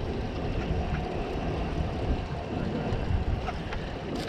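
Wind buffeting the microphone with water slapping against a boat hull, a steady rumbling noise with no distinct events.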